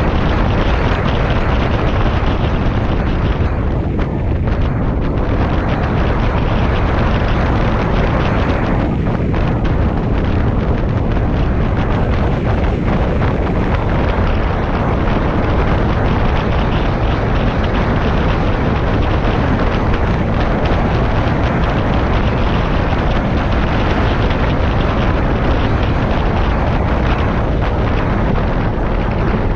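Steady wind buffeting the microphone of a moving Honda PCX 125 scooter, with the scooter's engine running beneath it.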